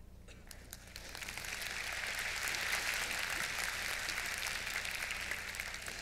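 Audience applauding, building up over the first second and easing off near the end.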